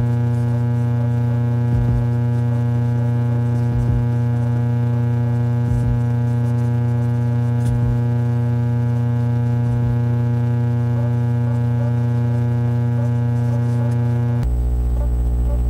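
Background music: a steady droning synth pad with a soft low pulse about every two seconds.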